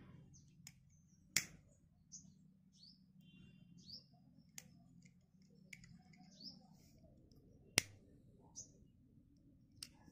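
A few sharp clicks from a disposable lighter being struck to shrink heat-shrink tubing over a crimped wire joint. The loudest clicks come about a second and a half in and near eight seconds, with a smaller one near the end.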